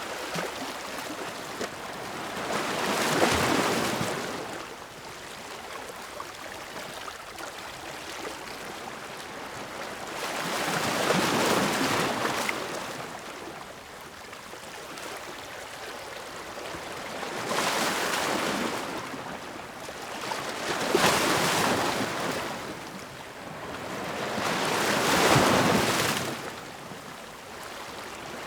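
Ocean waves breaking on the shore, the surf rising and falling in swells every few seconds.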